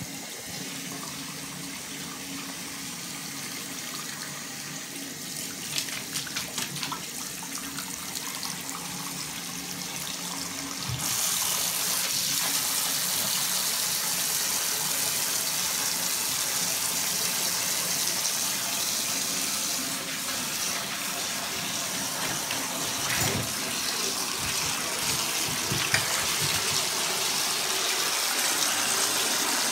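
Water running from bathroom sink taps into the basin, with a husky puppy splashing in it; the flow gets louder and hissier about eleven seconds in.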